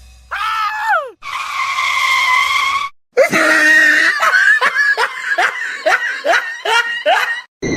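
A voice: a short cry falling in pitch, then a held high cry, then a quick run of about ten short pitched yelps, two or three a second, like laughter.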